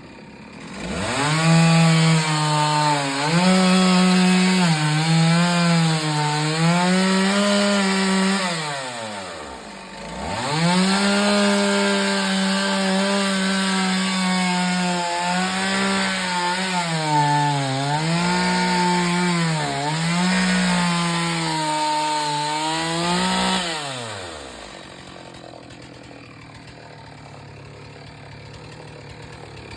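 Two-stroke chainsaw revved up and cutting wood in two long bouts with a short break between, the engine pitch dipping and recovering as the chain bites. Near the end it drops back to a low idle.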